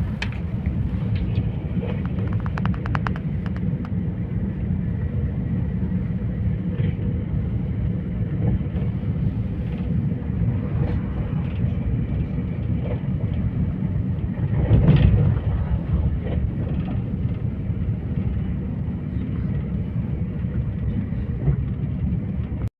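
Steady low rumble of a moving vehicle, with a few faint clicks about two to three seconds in and a brief louder swell around fifteen seconds in.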